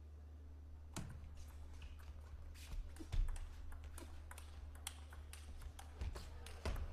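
Table tennis rally: the ball clicks sharply off rackets and table in quick, irregular succession, starting about a second in, over a low steady hum.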